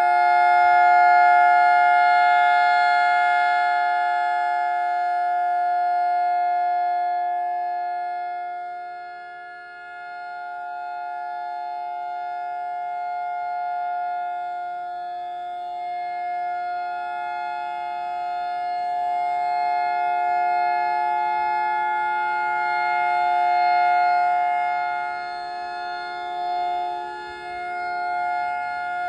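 EOWS 612 electronic outdoor warning siren sounding its alternating wail tone. It holds a chord of steady notes whose loudness swells and fades slowly, dipping about ten seconds in and again near the end.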